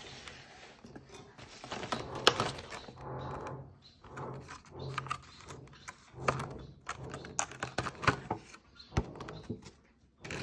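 Clear plastic blister packaging and a cardboard box being handled by hand: irregular crinkling and rustling with many sharp plastic clicks and taps.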